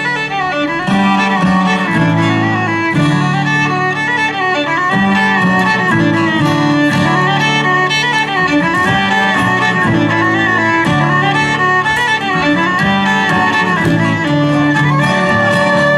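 Bluegrass band playing an instrumental tune, a fiddle carrying the melody over strummed guitar.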